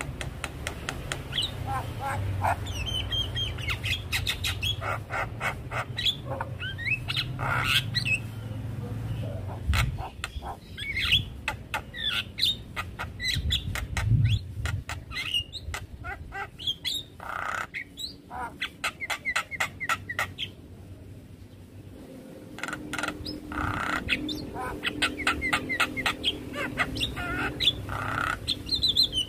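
Javan myna (jalak kebo) singing a busy, varied song of rapid clicks, rattles, squawks and short whistles, with brief pauses. A low rumble sits under the first third.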